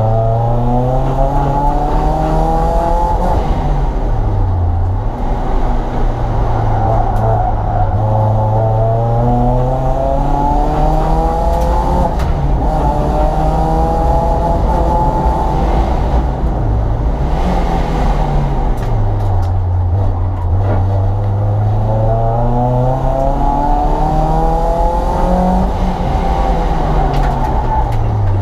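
Renault Twingo sprint car's engine heard from inside the caged cabin under hard acceleration. Its pitch climbs in several long pulls and falls back sharply between them as the driver lifts and changes gear.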